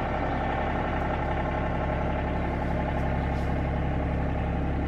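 A motor running at a steady speed: a really loud, constant drone with a low hum that neither rises nor falls.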